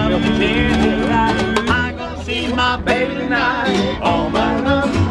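Acoustic street band playing an upbeat old-time tune live: saxophone, double bass, plucked banjo or guitar and a small cymbal-and-percussion rig keeping a steady beat, with a man singing over it.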